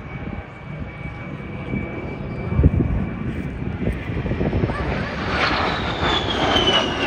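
Aircraft engine passing by, its noise swelling in the second half, with a high whine that falls steadily in pitch as it goes past. A low bump about a third of the way in.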